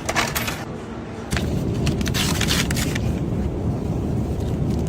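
Steady low rumble of vehicle cabin noise that jumps louder about a second in, with rustling and clicking near the start and around two seconds.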